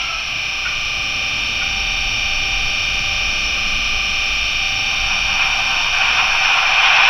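Class 55 Deltic diesel engine sound effect, its twin Napier Deltic engines running after start-up. It is a steady high whine over a hiss that grows louder and rougher about six seconds in.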